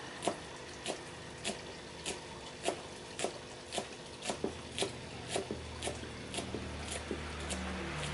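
A knife chopping fresh green herbs on a thick round wooden chopping block. The blade knocks on the wood in a steady rhythm, about one stroke every half second, coming a little faster after about four seconds.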